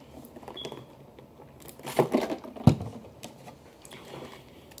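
Close-up eating sounds of boiled snow crab legs being handled and cracked open: scattered shell crackles, with one sharp crack about two and a half seconds in.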